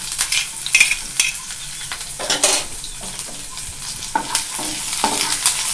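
Sliced onion scraped off a steel plate into hot mustard oil with frying cumin and mustard seeds, sizzling and crackling as a spatula stirs it. Sharp clicks of the scraping and popping seeds come thickest in the first second, then a steadier sizzle.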